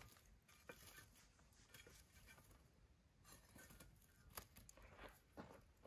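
Near silence, with faint scattered crackles and ticks from a wood campfire's bed of coals.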